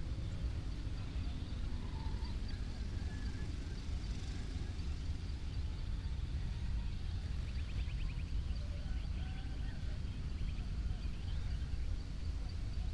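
Village dawn ambience: faint scattered bird chirps and a quick trill about eight seconds in, over a steady low rumble.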